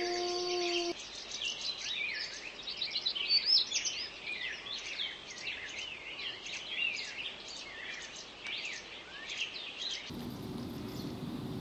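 A low, drawn-out wolf howl ends about a second in. Then a dense chorus of many small birds follows, full of short, quick chirps that mostly sweep downward. Near the end the birds stop and a low, steady noise takes over.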